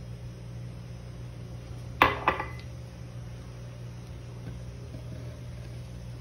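Small drinking glass set down on a stainless steel counter: two sharp glassy clinks about two seconds in, a quarter second apart, with a brief ring.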